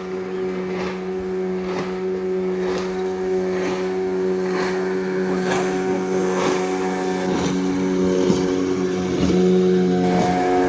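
Boat engine running at a steady pitch, with a faint knock about once a second.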